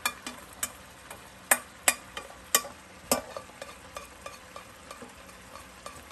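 A spatula scraping and knocking against a stainless steel bowl as blanched mung bean sprouts are pushed out into a frying pan: several sharp knocks, about half a second to a second apart. A faint steady frying sizzle from the pan runs underneath.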